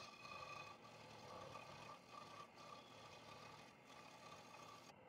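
A cheap scroll saw running faintly, its blade cutting a small block of wood from a log offcut, with a steady whine and a light rasp that rise and dip unevenly.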